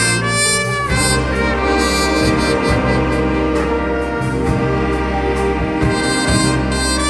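Church wind orchestra playing, with brass and saxophones in held chords over a steady bass line.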